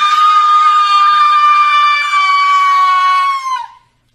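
A person in a Grinch costume screaming one long, high note at a steady pitch. The scream dips and breaks off about three and a half seconds in.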